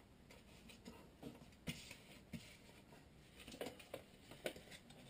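Paper instruction leaflets being handled and shuffled: faint rustling with a few soft crinkles and taps, the sharpest about one and a half seconds in.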